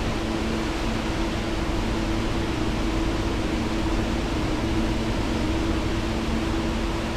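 Steady rush of falling water from the Eas Fors waterfall, an even, unbroken noise.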